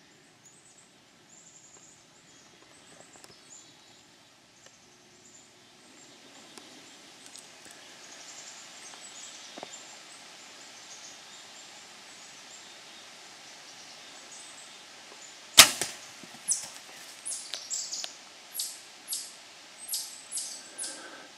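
A Hoyt bow is shot at a bear: one sharp crack of the string about two-thirds of the way in, the loudest sound. A run of short, sharp high-pitched clicks follows, about two a second, over a faint outdoor hiss.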